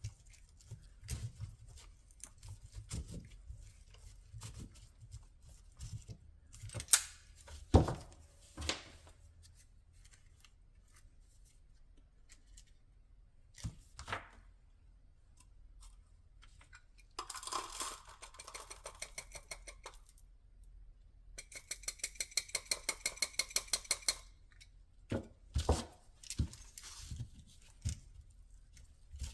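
Hand work on a firework canister shell's paper and cardboard casing: scattered knocks and taps, a scratchy stretch of tearing about halfway through, and a fast even run of clicks for a few seconds later on.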